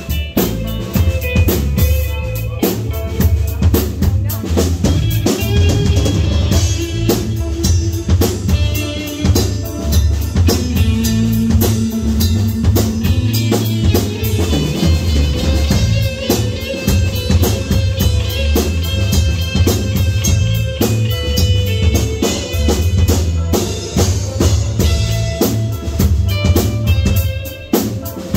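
A live band plays throughout: a drum kit keeps a beat with bass drum, snare and cymbals, over electric guitar and electric bass.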